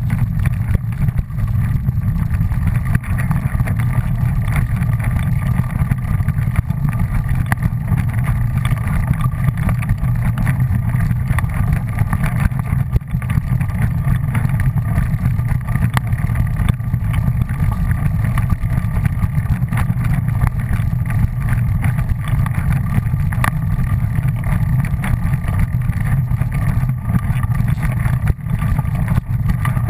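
Small off-road vehicle's engine running at a steady speed while riding along a trail: a constant low drone with a faint steady whine above it.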